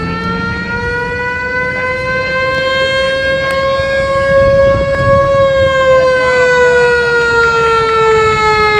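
Siren on a vintage emergency vehicle wailing: one loud pitched tone that climbs slowly until about halfway through, then slowly sinks, with vehicle engines running underneath.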